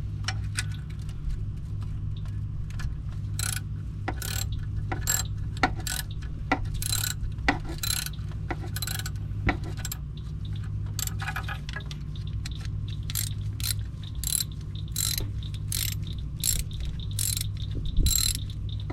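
Hand ratchet wrench clicking in short, irregular runs as the oil cooler bolts on a Chevy Cruze 1.4L engine are worked loose, over a steady low hum.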